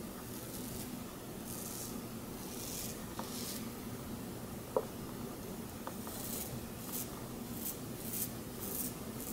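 Safety razor scraping through lathered stubble in short strokes, each a brief crisp rasp. There are a few strokes, then a quicker run of about five near the end, with a couple of small clicks in between.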